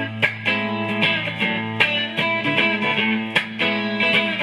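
Live band playing an instrumental shuffle groove: electric guitar over a steady bass line, with a regular beat.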